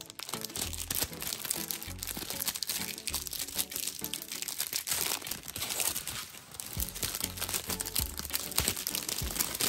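Plastic candy wrappers crinkling and tearing as a snack-size multipack of chocolate bars is opened by hand and a foil-lined mini-bar wrapper is pulled apart, with a steady crackle throughout. Light background music with a bass line plays underneath.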